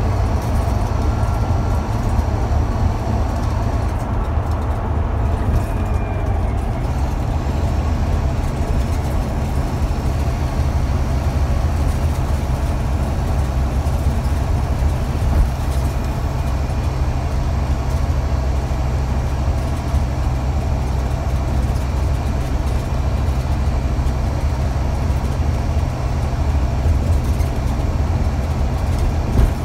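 Scania Omnidekka double-decker bus's DC9 five-cylinder diesel and ZF automatic gearbox under way, heard from the upper deck: a steady low drone with road noise, the drone stepping up slightly in pitch about seven seconds in.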